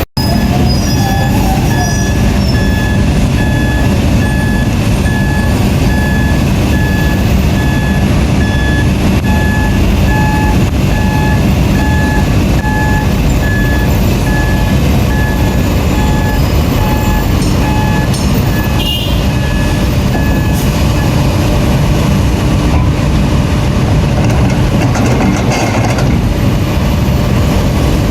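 Heavy diesel engines of construction machinery running steadily at a dig site, with a backup alarm beeping in an even series for about twenty seconds before it stops.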